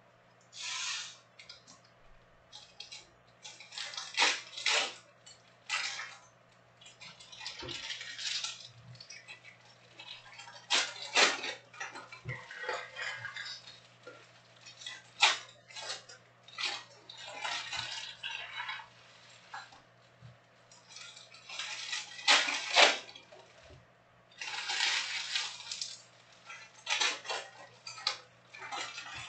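Shiny plastic wrappers of Panini Prizm trading-card packs being torn open and crinkled, with cards handled and slid together, in irregular bursts of crackling. A faint steady hum lies underneath.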